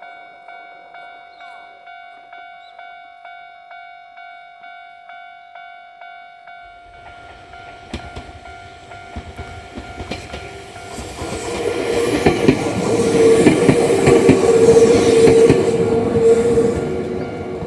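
Electronic railway crossing bell sounding its standard warning tone at about two strikes a second. About seven seconds in, an electric train approaches and passes through the crossing with wheel clatter and a steady whine, loudest for a few seconds near the end, while the bell keeps ringing.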